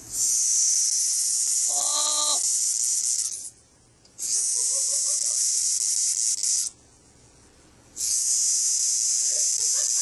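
Live cicadas held in a dog's mouth buzzing in three long, loud, harsh high-pitched bursts of about two to three seconds each, stopping briefly between bursts: the alarm buzz a cicada gives when seized.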